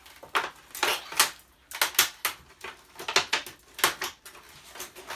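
Thin sheet metal from a flatscreen TV being ripped and crumpled by hand: an uneven run of sharp crackling snaps, very noisy.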